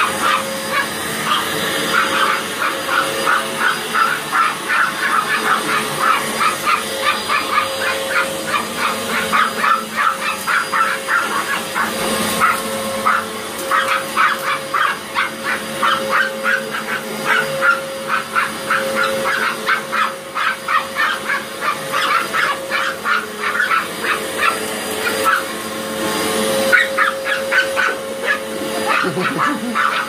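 Chihuahuas barking without let-up, several barks a second, over the steady hum of a running upright vacuum cleaner.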